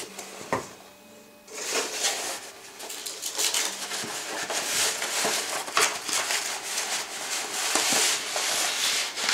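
Foam packing peanuts spilling and rustling out of a cardboard shipping box as it is tipped and shaken, a dense rattle of many light little hits that starts about a second and a half in. A single tap comes just before it.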